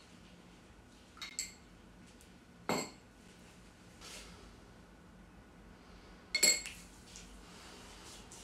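A spoon clinking against a drinking glass of yogurt: two light clinks about a second in, a sharper one shortly after, and the loudest clink near the end, each with a brief glassy ring.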